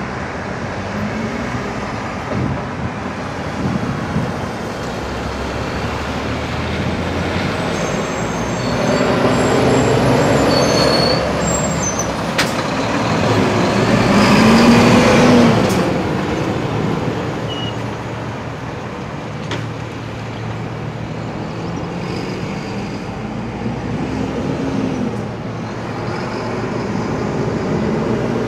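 Road traffic at a roundabout: diesel lorries and cars passing. The loudest part comes about halfway through, as a lorry's engine pulls past close by and its pitch rises as it accelerates.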